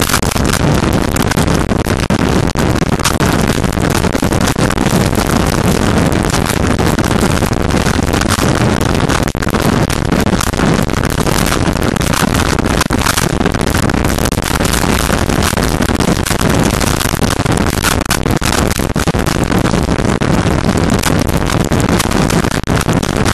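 Steady, loud rush of wind over a motorcycle-mounted camera's microphone at road speed, mixed with tyre noise on a wet road, with a constant crackle of small hits on the microphone.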